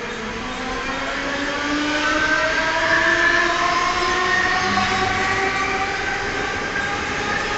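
Mumbai Central Railway suburban EMU local train pulling out. Its traction motors whine in several tones that rise steadily in pitch as it accelerates, over the running noise of the coaches and wheels. It grows louder over the first two seconds.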